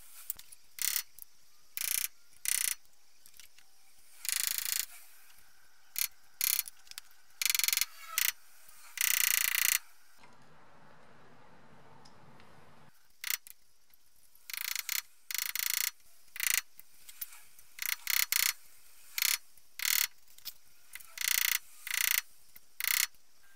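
Aerosol penetrating oil sprayed in short hissing bursts onto a rusty BMW E30 rear wheel hub. After a short pause, a screwdriver scrapes and picks in quick strokes at the rusted hub centre and axle nut.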